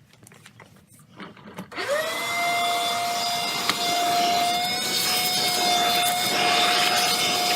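Vacuum cleaner switched on about two seconds in: the motor's whine rises quickly and settles into a steady, loud run, sucking out the debris from a freshly cut hole in the steel wall of a gun safe.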